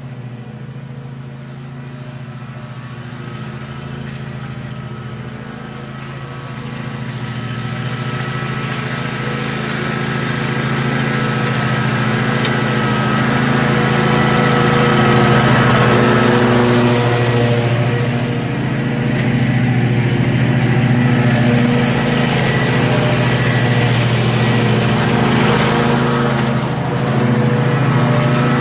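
John Deere 636M stand-on mower running steadily with its blades cutting grass, growing louder as it drives closer, with two brief dips in level in the second half.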